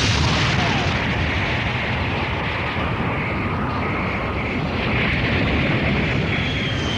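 Cartoon sound effects of a volcanic eruption: a steady, dense rumble with a hissing top, and the sound of a jet aircraft flying through the falling rocks, with a faint rising whine near the end.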